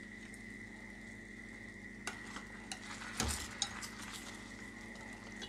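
Metal spoon and chopsticks clinking and scraping against a stainless steel pan while pieces of braised fish are lifted out of the braising liquid, with a few clicks about two seconds in and a louder cluster of scrapes just past the middle. A steady faint hum runs underneath.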